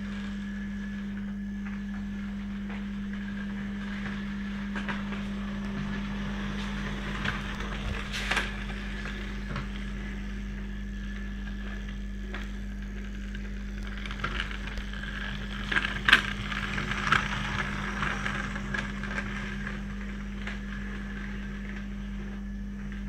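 A 16mm-scale narrow-gauge model train running on a tabletop track: a steady low hum under the clicking and rattling of the wagons' wheels over the rails. The rattling grows busier about eight seconds in and again around sixteen seconds, where it is loudest.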